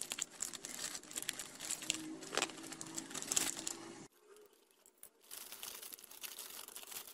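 Plastic courier mailer bag crinkling as it is pulled and torn open by hand, in irregular bursts. The sound drops away about four seconds in, then quieter crinkling follows.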